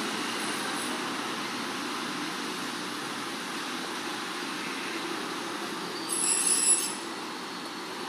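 Steady background rumble of vehicle traffic, with a brief high-pitched sound about six seconds in that is the loudest moment.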